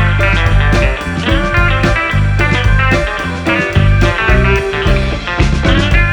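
Upbeat background music led by guitar, with bass and drums keeping a steady beat.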